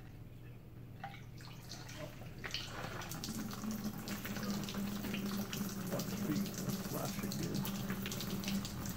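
Diesel flush running through an air-cooled VW Beetle engine, pouring and splashing as it drains out the open oil-strainer opening with the fuel-and-water-fouled oil. Splashes start about a second in and settle into a steady stream about three seconds in.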